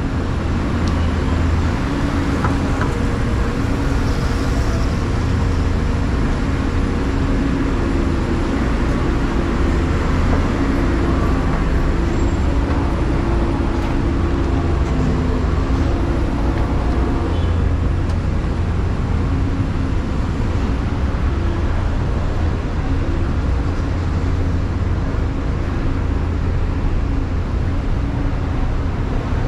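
City street traffic: vehicle engines running with a steady low rumble.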